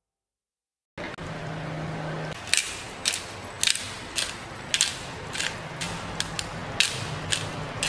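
A black pepper grinder being twisted over the pan, making a sharp crunching click about twice a second. Under it is a steady hiss with a low hum, which starts about a second in.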